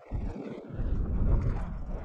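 Wind buffeting the microphone: a gusty low rumble that drops away briefly at the start, then rises again.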